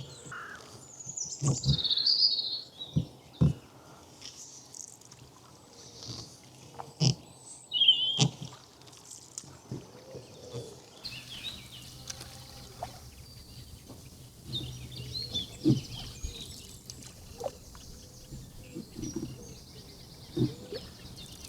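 Birds singing and calling, with a few short, sharp knocks scattered through, the loudest about eight seconds in.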